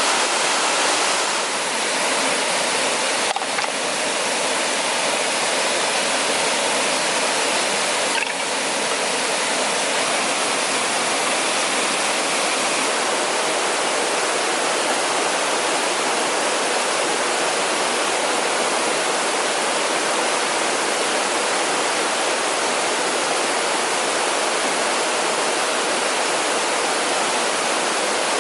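Waterfall: a steady rush of falling water, even and unbroken, with a couple of faint clicks about 3 and 8 seconds in.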